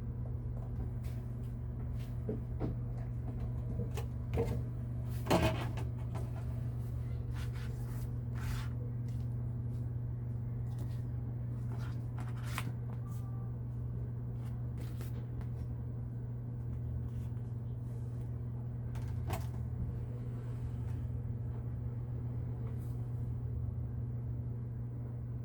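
Steady low hum with scattered light clicks and knocks at irregular intervals, the loudest two about four and five seconds in.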